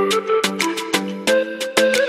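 Background music: sustained pitched instrumental notes over a quick, steady percussive beat.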